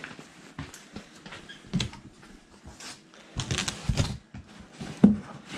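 Cardboard box flaps being handled and pulled open, rustling and scraping in irregular bursts, with a sharper knock about five seconds in.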